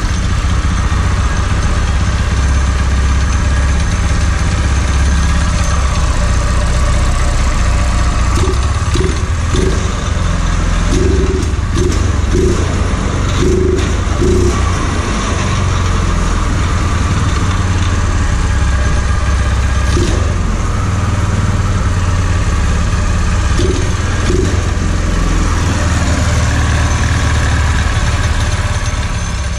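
Small pull-start engine running steadily on its new carburetor, with a light clicking that the builders trace to the governor arm hitting a gear inside the engine.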